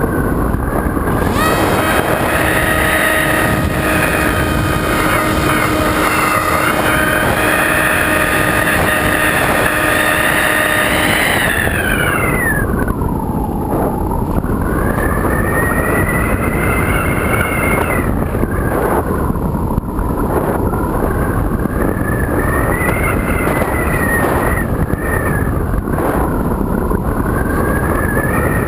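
Electric motor and propeller of a Multiplex EasyStar foam RC plane, heard from a camera on board: a whine whose pitch rises and falls with the throttle, dropping low about halfway through and climbing back, over a steady rush of wind on the microphone.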